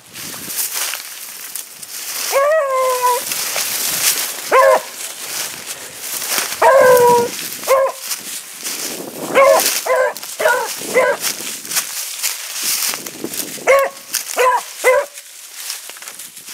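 A beagle giving tongue on a hare's scent line: about eleven barks in three bunches, two of them long drawn-out bawls that fall in pitch, the rest short chops. Dry leaves and brush rustle throughout.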